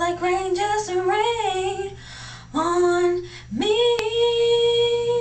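A young woman singing solo with no accompaniment. She runs through a string of gliding notes, sings a short note, then from about three and a half seconds in scoops up into one long held final note.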